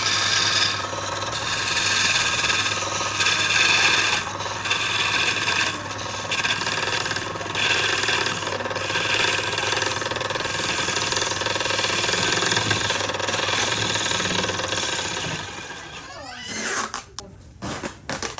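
A woodworking tool working wood: a loud rasping noise over a steady hum, broken by short pauses about every second or two as the tool is passed along the piece. It stops about fifteen seconds in and is followed by a few light clicks.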